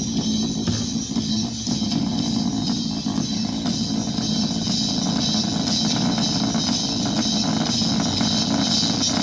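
Music with drums and guitar played loud through a Jam speaker's driver, pushed hard by an amplifier to the point of overheating.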